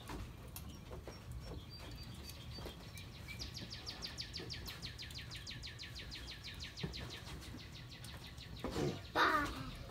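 A songbird's long, even trill of rapid high notes, about ten a second, lasting some four and a half seconds over faint outdoor background, with a brief louder sound near the end.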